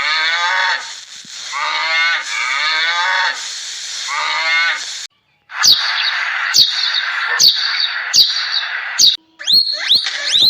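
Animal calls: about four long calls, each falling in pitch, then after a break a run of harsh, noisy calls about once a second, ending in a few quick rising chirps.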